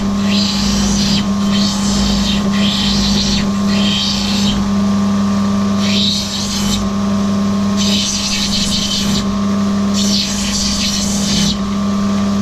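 Wet opal-grinding machine running with a steady motor hum, and a hissing grind each time the rough opal is pressed against the spinning wet wheel, in about seven bursts of roughly a second.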